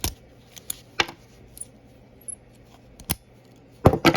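Sharp metal clicks and taps from a Master Lock 140 brass padlock being worked with a lock pick, single clicks spaced out with a louder double click near the end.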